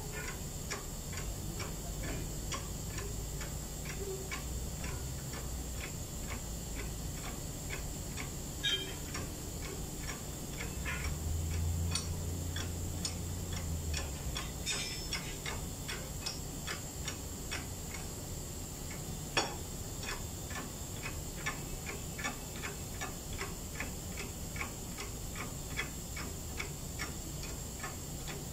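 Steady, even clicking, about two or three clicks a second, from the hand pump of a Mercedes-Benz Actros truck's hydraulic cab-tilt system as its handle is worked to lower the tilted cab. A couple of louder single clicks stand out, one about nine seconds in and one about nineteen seconds in.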